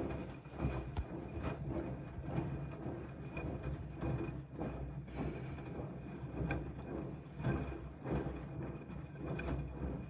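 Siemens iQ 300 front-loading washing machine in its wash cycle: the drum turning wet laundry through soapy water, sloshing and tumbling in repeated surges over a steady low hum, with an occasional sharp click.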